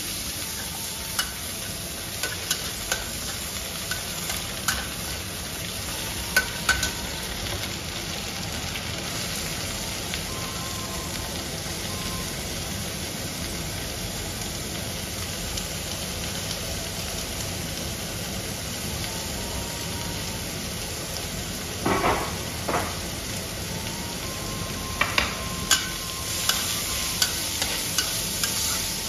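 Chopped scallions and diced tofu sizzling in hot oil in a wok, stirred and scraped with a metal spatula. A steady frying hiss runs under scattered clicks of the spatula on the pan, which come thicker near the end.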